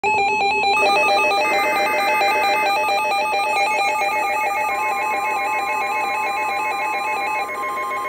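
Emergency Alert System alert tones signalling a Special Marine Warning: several loud electronic tones warble rapidly between pitches and overlap. A steady single tone joins them about halfway through.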